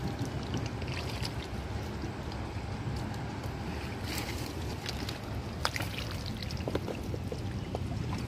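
Water splashing and sloshing in irregular short bursts, over a low steady rumble.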